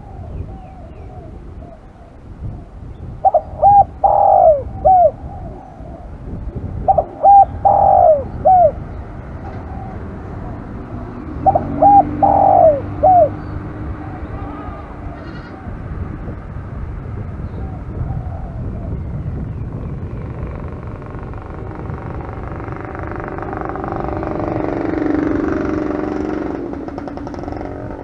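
Spotted dove cooing in three loud phrases of several short notes each, a few seconds apart. A low hum swells and fades near the end.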